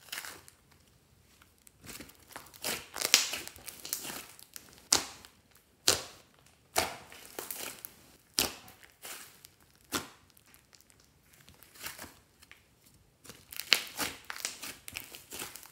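Hands kneading and squeezing a thick lump of glossy slime mixed with clay, making irregular sharp pops and crackles as the sticky mass is folded and pressed.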